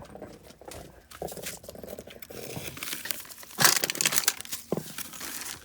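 Crackling, crinkling noise made of many small clicks, loudest about two thirds of the way through; it sounds like sizzling bacon.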